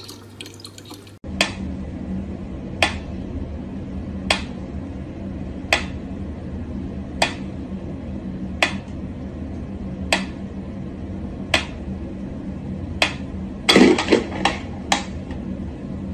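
Mechanical pendulum metronome ticking slowly and evenly, about one sharp tick every second and a half, over a steady low hum. Near the end a louder clatter breaks in, followed by a few quicker clicks.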